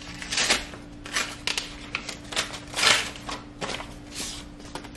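A paper envelope being torn open and the card inside handled: an irregular run of short tearing and crinkling noises, the loudest about three seconds in.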